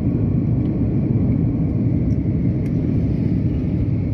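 Steady low roar of engine and airflow noise inside the cabin of an Airbus A330-200 in flight, shortly after takeoff.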